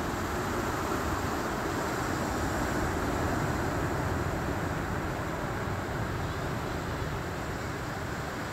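Ocean surf breaking on a rocky shore: a steady wash of noise that swells a little about three seconds in and then eases.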